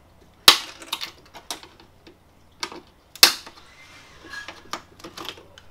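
Flat-blade screwdriver prying at a plastic clip on a BMW E46 M3 trunk lid: a series of sharp clicks and snaps, the two loudest about half a second and three seconds in, with lighter ticks between.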